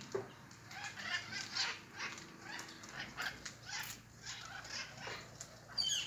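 A flock of mitred conures giving harsh, screeching calls, several a second and overlapping. A sharper, higher call near the end is the loudest.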